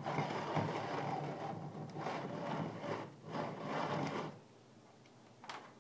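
Fishing line being drawn out by hand in several pulls, a gritty rattling whir with short pauses, as three feet of line are measured out to the next hook. It stops about four seconds in, and one brief pull follows near the end.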